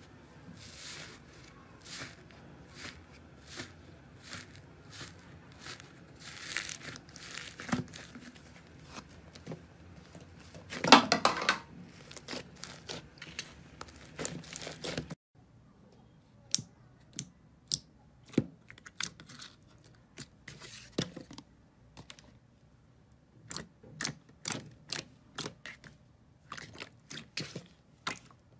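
Close-miked slime being handled, giving quick crackling and popping clicks. There is a denser crunchy burst about eleven seconds in, and the background changes abruptly about halfway through, as another clip begins.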